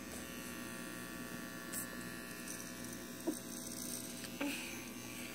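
Electric hair clippers running with a steady buzz as they trim a child's hair.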